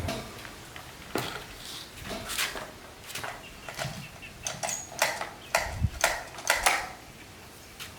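A series of irregular sharp knocks and clanks, about a dozen spread over several seconds, with short pauses between them.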